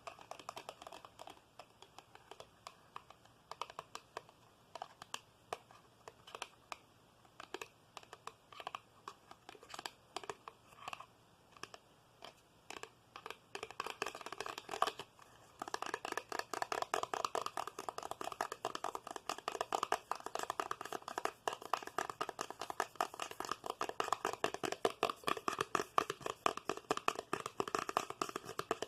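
ASMR tapping and scratching close to the microphone. Scattered, irregular taps come first, then about halfway through the sound becomes a faster, louder, continuous run of rapid tapping and scratching.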